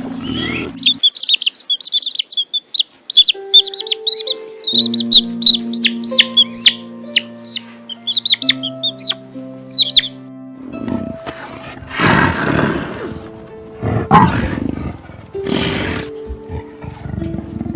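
Chicks peeping in quick runs of short, high, downward-sliding cheeps over background music with sustained notes. About halfway through the cheeping stops, and a few loud, rasping animal calls follow.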